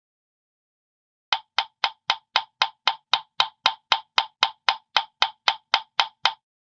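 A Hanna-Barbera cartoon sound effect: about twenty identical sharp, hollow wood-block knocks in an even run of about four a second, starting about a second in and stopping shortly before the end.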